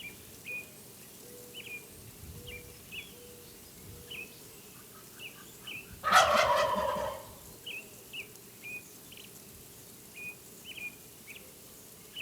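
A Merriam's wild turkey gobbler gobbles once, loud, about halfway through, a rattling call of about a second that falls in pitch. Short high bird chirps come again and again throughout.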